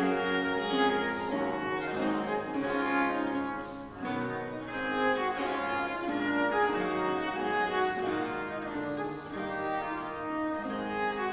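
Viola da gamba playing a Baroque sonata, a quick line of bowed notes with theorbo accompaniment, and a brief break in the phrase about four seconds in.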